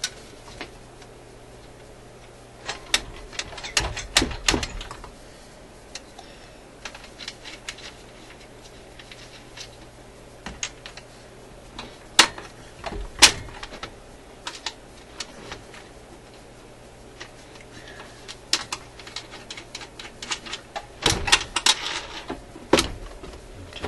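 Sheet-metal clicks, taps and clunks as a record player's turntable deck plate and perforated metal panel are handled and fitted back into its case, the loudest knocks about four seconds in and near thirteen seconds, and a busy run of clatter near the end. A faint steady low hum lies underneath.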